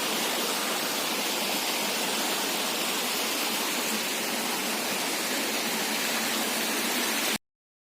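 Waterfall rushing, a steady even noise of falling water, which cuts off suddenly near the end.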